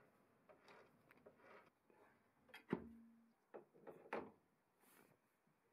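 Metal lathe chuck being handled and fitted onto a dividing head: scattered soft clicks and knocks, the loudest a metallic clunk with a brief ring just under three seconds in, then a few more knocks about a second later.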